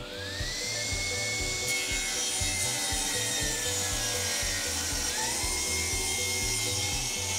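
Felder sliding table saw with a rip blade spinning up with a rising whine, then ripping a wooden board. The whine sags slowly in pitch under the load of the cut and snaps back up about five seconds in.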